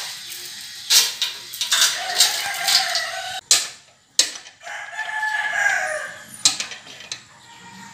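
A ratchet wrench clicking and knocking as a bolt in a loader transmission case cover is turned. A rooster crows twice, each a long bending call, about 2 and 4.5 seconds in.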